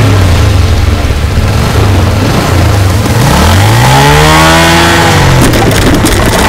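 Motorcycle engine revving up and then dropping back over a steady low drone. Near the end comes a clatter of sharp impacts as plastic crates are knocked over.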